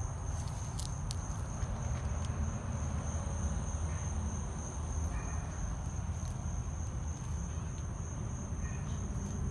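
Crickets trilling steadily in one continuous high-pitched note, over a low rumble.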